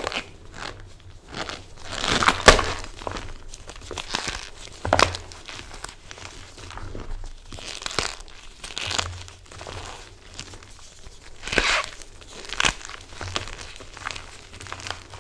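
Blocks of MagKing gym chalk and cornstarch being crushed and squeezed by gloved hands in a metal bowl: irregular crunching and crumbling, with the loudest crunches a couple of seconds in, around five seconds in and near twelve seconds.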